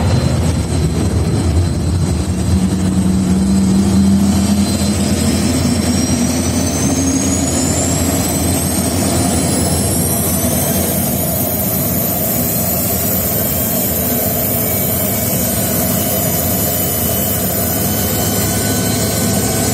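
Airbus A310 turbofan engine starting up: a high whine climbs steadily for several seconds, from about four seconds in, then holds level over a steady low rumble.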